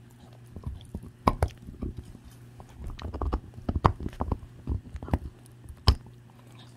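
Staffordshire bull terrier gnawing a marrow bone: irregular wet chewing with sharp clicks and knocks of teeth on bone, the loudest about a second in, near four seconds and near six seconds.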